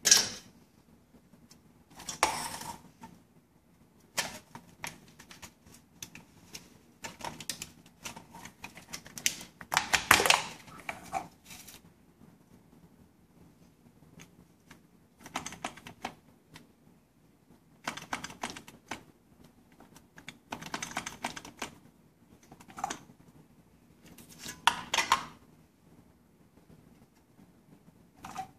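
Aluminium soda-can parts being pulled apart, handled and set down on a hard countertop: light clicking and clattering in short irregular spells with quiet gaps, the loudest rattle about ten seconds in.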